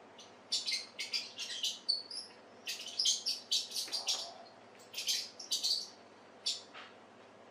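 Squeaking mouse sound effects from a cat-game video playing on a television: many short, high-pitched squeaks in quick clusters, stopping about a second before the end.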